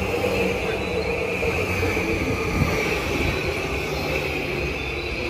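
Yamanote Line E235-series electric train moving along the platform. It is a steady rumble of wheels and traction motors with a constant high ringing tone above it.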